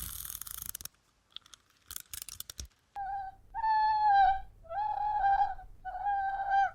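An animal's repeated high-pitched cries, four of them, each held at a nearly steady pitch for about half a second, starting about three seconds in. Before them a hiss cuts off about a second in, followed by a few clicks.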